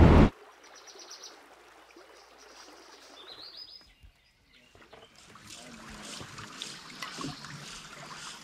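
Music cuts off just after the start, leaving faint riverside sound: a quick bird trill, then a short rising bird call. From about five seconds in comes a soft trickling and lapping of water that slowly grows.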